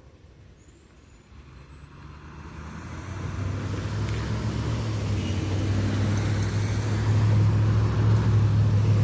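A motor vehicle's engine running close by, growing louder over the first few seconds and then holding a steady low hum.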